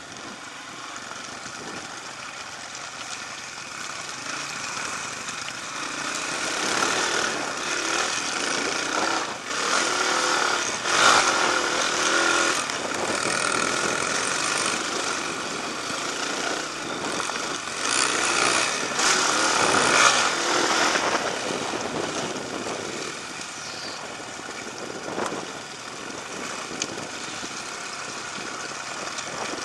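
Off-road dirt bike engines running under throttle as the bikes ride a trail, heard from on board. The engine noise swells louder through the middle, with surges about a third of the way in and again a little past halfway, then eases off.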